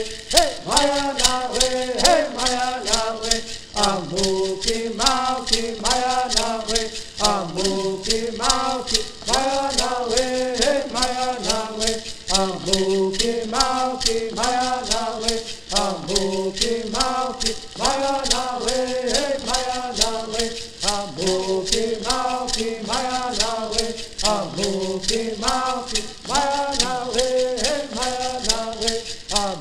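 A group of men singing a traditional Serrano bird song in unison, in short repeating phrases. They shake gourd rattles in a steady, even beat.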